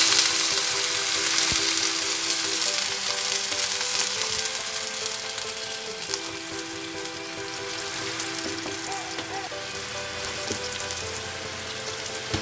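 Water boiling up in a hot frying pan of fried tofu, a loud hiss and sizzle at first that eases into steady bubbling as the pieces are stirred with a spatula.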